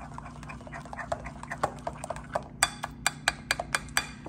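Metal spoon stirring and mashing lumps of softened butter into a runny powdered-sugar and lemon-juice glaze in a ceramic bowl, wet scraping with clinks against the bowl. The clinks become sharper and come several times a second in the second half.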